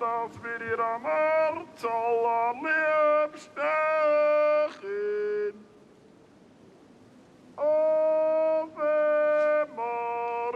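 Music: a melody of short, steady, held sung-sounding notes, one after another. It breaks off for about two seconds in the middle, then resumes.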